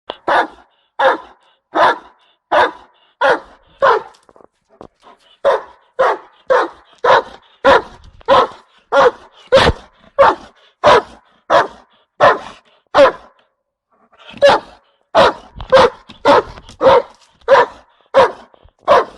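Doberman pinscher barking: a long run of single barks, about three every two seconds, broken by two short pauses, about four seconds in and about fourteen seconds in.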